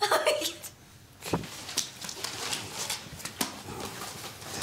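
Someone rummaging through a bag: rustling and small knocks, with a dull thump about a second in. A brief bit of voice is heard at the very start.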